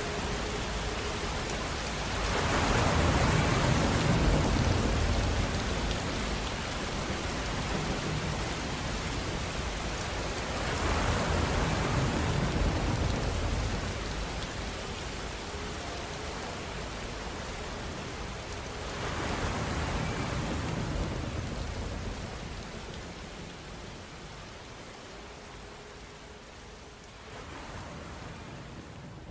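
Steady rushing noise that swells louder about every eight seconds, with a faint steady hum underneath.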